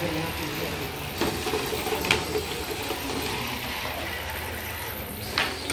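An FTC competition robot's electric drive motors and gearboxes whirring steadily as it drives across the field, with a few sharp clicks.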